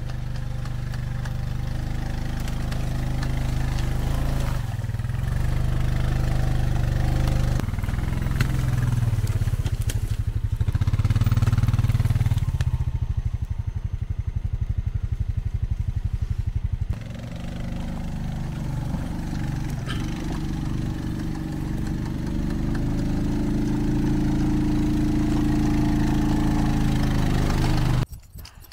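Engine of the forestry crew's machinery running for a long stretch as they clear wind-blown trees. Its speed rises and eases, loudest about 10 to 13 seconds in, and it drops away sharply near the end.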